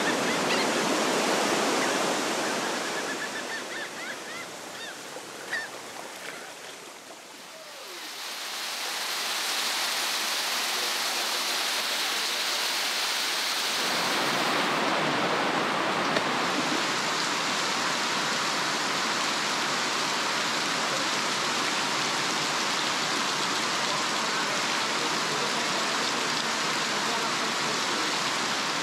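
Surf washing over rocks, fading out several seconds in. Then a steady rush of running water from a fast, rain-swollen stream.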